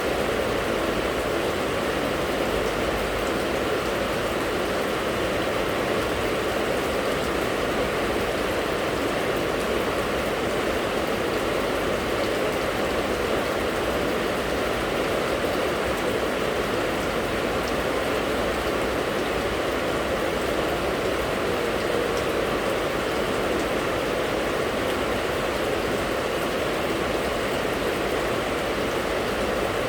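Steady rain falling, an even, unbroken rush of water.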